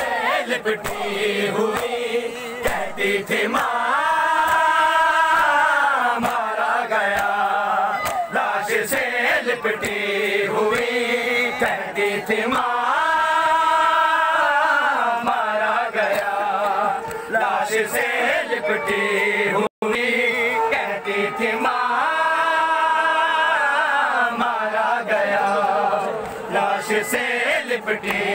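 A crowd of men chanting a noha, a Shia mourning lament, in unison, with the sung refrain swelling about every eight or nine seconds. Many sharp slaps run through it, hands beating on chests in matam.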